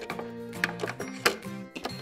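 Background music with a few sharp plastic clicks and knocks as a toy tray is slid into a plastic toy oven and its door is swung shut.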